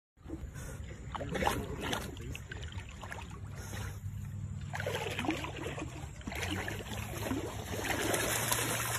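Lake water sloshing and splashing around a Great Pyrenees paddling as it swims, in uneven bursts, over a steady low hum.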